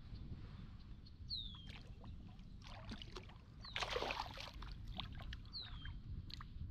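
Kayak paddle strokes in the water: splashes and drips, the biggest about three to four seconds in. A bird repeats a short, high, downward-slurred call a few times over a low, steady rumble.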